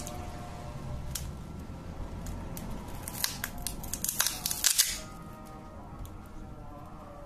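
Realme C3 display being pried off the phone's frame: a few sharp clicks, then a quick flurry of clicks and crackles about three to five seconds in as the glued screen lets go. Faint background music runs underneath.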